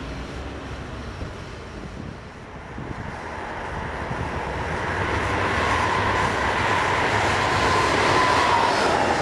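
A DB Class 218 diesel-hydraulic locomotive approaching at the head of a regional train, its V12 diesel engine growing steadily louder from about three seconds in, with a high whine over it in the second half. Before that, a LINT 41 diesel railcar pulling away fades out.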